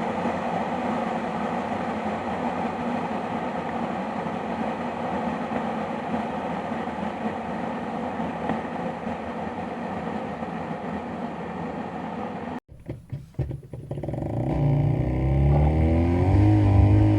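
A household appliance running with a steady whirring hum, which stops abruptly about two-thirds of the way through. A few clicks follow, then another appliance motor starts and spins up with a rising whine that levels off into a steady loud hum near the end.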